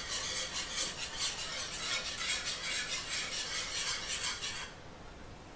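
Metal wire whisk beating a thin butter, flour and lemon-juice sauce in a non-stick frying pan, a quick steady rhythm of scraping strokes against the pan that stops about four and a half seconds in.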